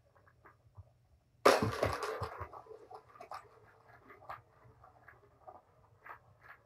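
Cat and kittens playing on a carpeted floor. A sudden loud scuffle about a second and a half in dies away over about a second, followed by light scattered taps and patters.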